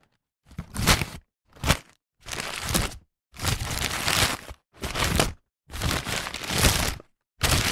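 A paper bag being crumpled and rustled in about seven short separate takes, each a second or so of crinkling, with dead silence between them.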